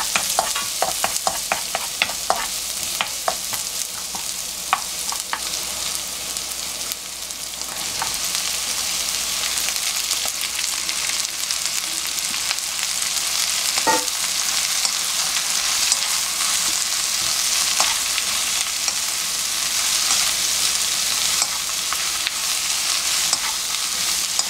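Green onion sizzling in oil in a nonstick wok, stirred with a wooden spatula that taps against the pan many times. From about a third of the way in, with the soaked dried eggplant, onion and green pepper added, the frying sizzle is louder and steadier and the taps come only now and then.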